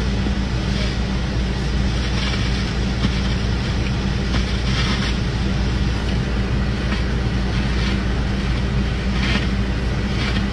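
Steady low rumble of a running engine, with a few faint brief noises higher up.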